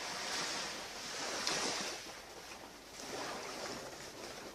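Ocean waves washing onto the beach, the surf hiss swelling and ebbing in surges, loudest about a second and a half in.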